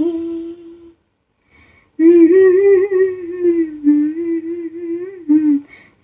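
A woman's voice singing a Tamil song unaccompanied, drawing out long held notes with a slight waver. The first note fades out about a second in, and after a short pause the voice takes up the line again about two seconds in.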